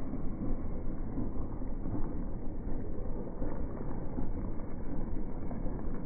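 Wind buffeting the microphone: a low, uneven rumble that rises and falls in quick gusts, with no steady engine note in it.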